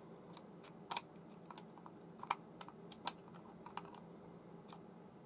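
Faint, irregular small clicks and taps of spinning-reel parts and hand tools being handled while the reel is reassembled.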